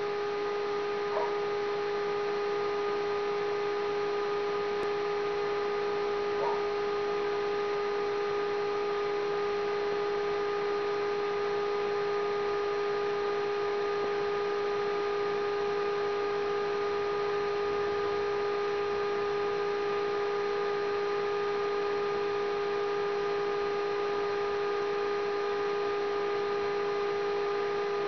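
A steady electrical hum: one unchanging pitched tone with a stack of overtones, with two brief faint chirps in the first few seconds.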